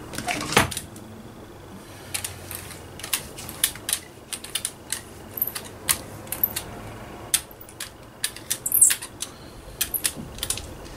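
Irregular light taps and clicks of craft materials being handled and set down on a work table, dozens of them, the loudest about half a second in and near the end.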